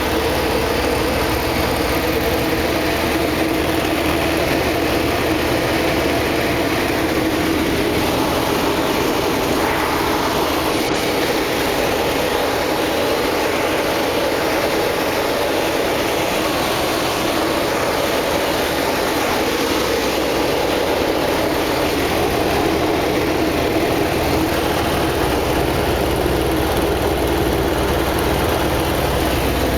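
Steady engine drone with no clear rise or fall in pitch.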